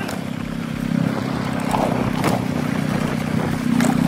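Motorcycle engine running steadily while riding, heard from the bike itself, with two brief sharp clicks about two and four seconds in.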